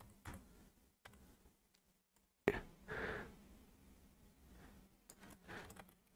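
A few faint, isolated computer keyboard and mouse clicks, the sharpest about two and a half seconds in.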